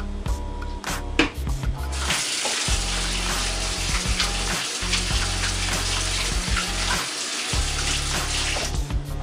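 Kitchen sink tap running as hands are washed under it, an even rush of water that starts about two seconds in and shuts off near the end. Background music with a steady bass runs underneath.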